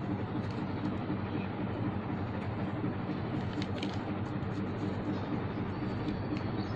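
Steady low hum with a hiss of background noise, and a few faint clicks about three and a half seconds in.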